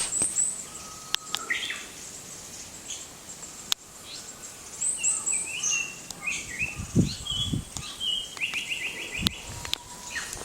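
Male Japanese paradise flycatcher singing: scattered high thin notes and short chirps, then a quick run of about seven repeated notes near the end. A couple of sharp clicks stand out.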